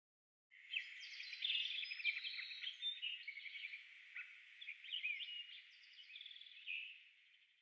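Songbirds chirping and trilling: many short, high calls and quick rising and falling notes, starting about half a second in and fading out near the end.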